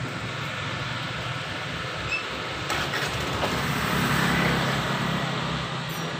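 A steady engine hum with a constant noisy wash over it, running without a break and swelling slightly a little past the middle.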